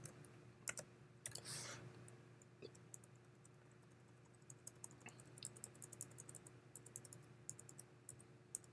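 Faint computer keyboard typing: a few scattered key clicks, then a quicker run of keystrokes from about halfway through.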